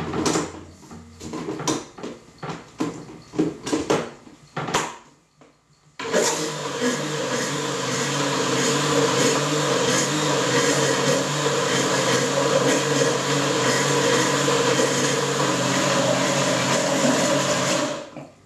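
Countertop electric blender running steadily for about twelve seconds, blending fruit, yogurt and milk into a smoothie. It switches on abruptly and stops near the end. Before it starts there are a few seconds of short knocks and taps.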